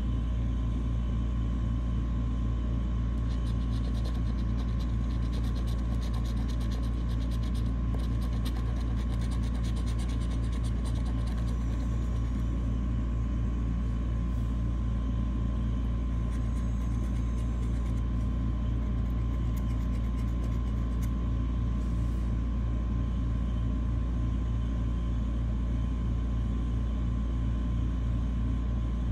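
Quick scraping strokes on the silver latex coating of a scratch-off lottery ticket, mostly in the first half, over a steady low hum.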